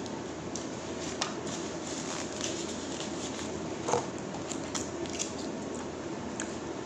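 Close-up eating and packet-handling noises: small wet mouth clicks and crinkles as a plastic ketchup sachet is squeezed and torn open. A louder crackle of a paper takeaway bag comes about four seconds in.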